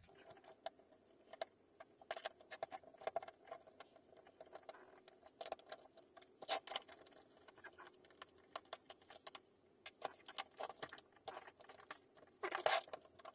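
Faint, irregular clicks and ticks of a Phillips screwdriver turning out the screws of a clock radio's case, with small screws set down on a tabletop. There is a denser run of louder clicks near the end, over a faint steady hum.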